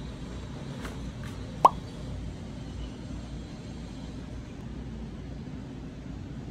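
Steady low background rumble, with two faint clicks and then a short rising plop about a second and a half in.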